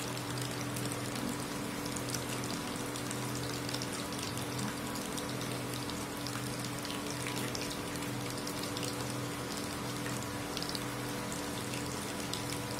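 Ivy gourd slices deep-frying in hot oil in an iron kadai: a steady sizzle with fine, continuous crackling. A steady hum runs underneath.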